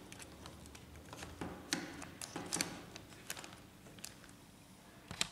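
A few faint plastic clicks and taps from a laser printer fuser unit being handled as its fuser sleeve is fitted, scattered over the middle of the stretch.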